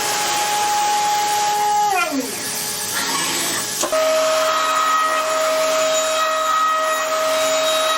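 CNC machine spindle whining at a steady pitch over a steady hiss. It winds down about two seconds in, then spins up again about four seconds in and holds a new, lower steady pitch.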